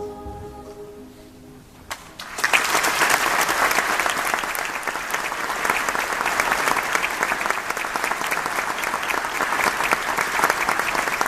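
The final chord of choir and piano fades out, and about two seconds in an audience starts applauding, with dense, steady clapping through the rest.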